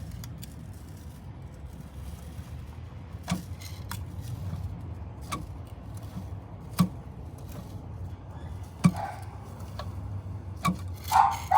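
Sharp metallic clunks, about one every two seconds, over a low steady hum: the Chevrolet Celta 1.0's crankshaft being shifted back and forth, showing excess end play from a worn crankshaft thrust bearing.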